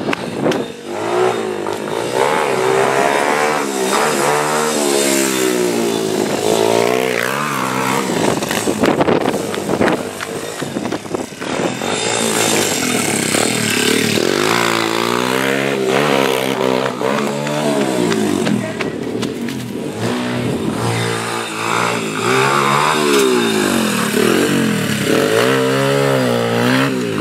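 Esse Factory pit bike's small single-cylinder engine revving hard as it is ridden, its pitch rising and falling again and again every second or two as the throttle is worked.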